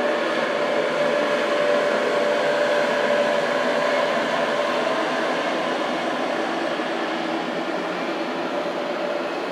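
X 76500 diesel railcar running slowly past while towing two unpowered Z 55500 electric units: a steady loud drone of engine and rolling train with a faint whine that weakens about halfway through.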